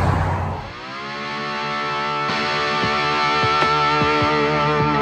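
Background music: a held, distorted electric guitar chord swells in about a second in, with single notes picked over it. Before that, a brief stretch of street noise ends.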